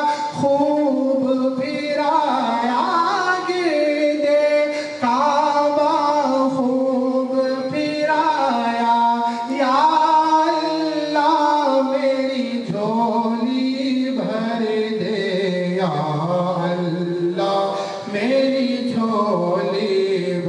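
A man reciting an Urdu naat unaccompanied into a microphone, singing long melodic phrases with gliding, ornamented notes.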